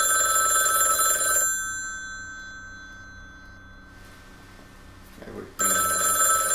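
Desk telephone bell ringing twice: a ring of about a second and a half that dies away slowly over the next few seconds, then a second ring starting about five and a half seconds in.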